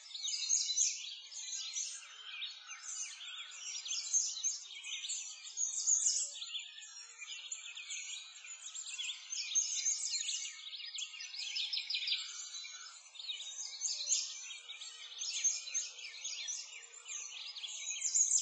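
A dense, continuous chorus of many small birds chirping and trilling over one another, all high-pitched with nothing low beneath it.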